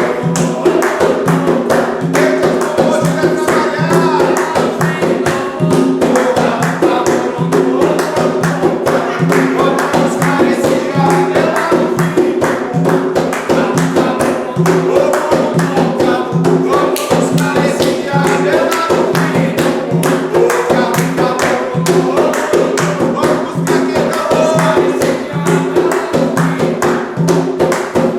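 Group singing a repeated Umbanda ritual chant (ponto) over fast, steady hand percussion with a jingling, tambourine-like beat.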